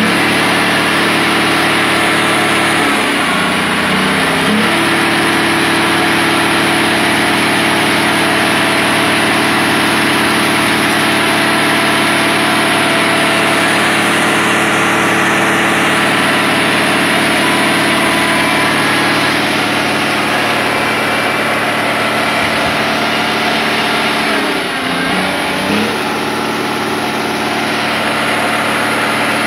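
Caterpillar 140H motor grader's diesel engine running steadily while grading. Its pitch dips and recovers briefly twice, about three seconds in and again near twenty-five seconds.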